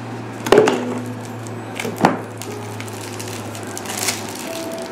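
Handling noises as a cat toy and its packaging are taken in hand: a sharp knock about half a second in and another about two seconds in, with lighter clicks and rustles, over a steady low hum.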